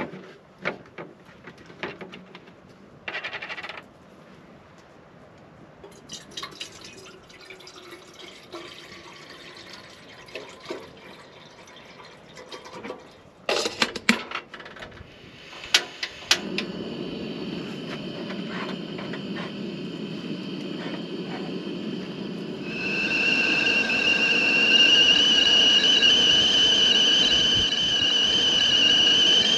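Water poured into a stainless stovetop kettle with a few clinks, then sharp clicks and a propane camp stove burner lighting and running with a steady low rush. About 23 seconds in the kettle starts whistling at the boil, a loud steady shrill tone with overtones that falls in pitch at the very end.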